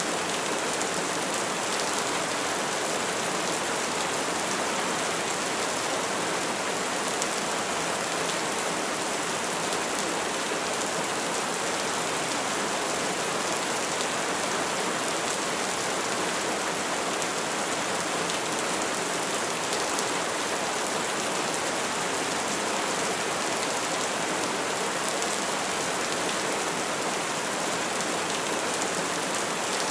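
Steady rain falling in a dense, even hiss, with faint patter of individual drops.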